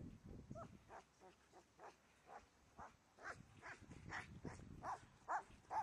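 A Border Collie barking repeatedly in short, quick barks, about two a second, growing louder about halfway through.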